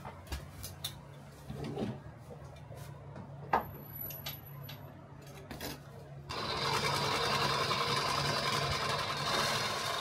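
A handheld power tool switches on about six seconds in and runs with a steady buzz. It is pressed against the metal work table to shake it, so the molten iron settles into the mould. Before it starts there are light clinks and clicks of tongs and crucible, the loudest a sharp click about three and a half seconds in.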